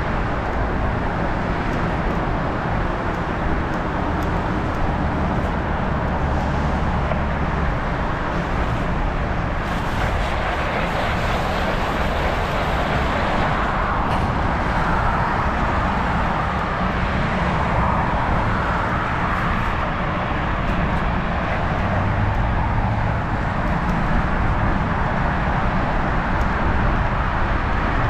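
Steady road and traffic noise from a moving bicycle ride, an even rumble with no single event standing out.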